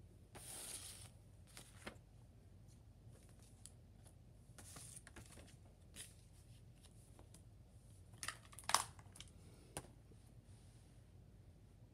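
Faint handling noises: soft rustles of a paper pamphlet being picked up, then a few sharp clicks of a plastic Blu-ray case being handled and set down, the loudest click a little before the end.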